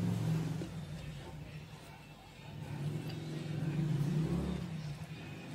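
A low engine hum that swells and fades twice.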